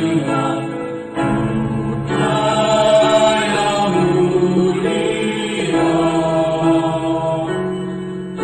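Choir singing a slow song in long held notes that change about every second, led by a conductor.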